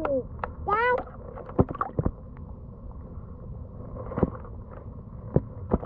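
Muffled sound of river water heard from a camera held under the surface: a steady low rumble with scattered clicks and knocks. Twice in the first second there is a short, rising muffled tone.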